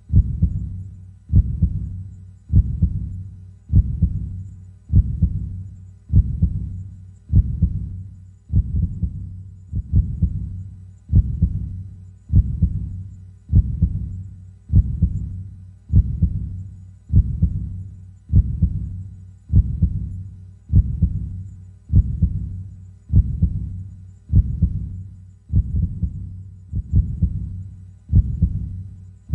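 Heartbeat: slow, steady low thumps, a little more than one a second, evenly spaced.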